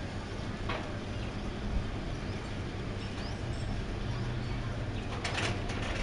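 Outdoor ambience: a steady low hum with a few brief high calls or scrapes, the loudest cluster about five seconds in.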